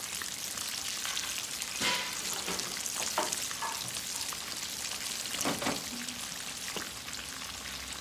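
Sliced onion and ginger frying in hot oil in a wok: a steady crackling sizzle, with a few brief knocks about two, three and five and a half seconds in.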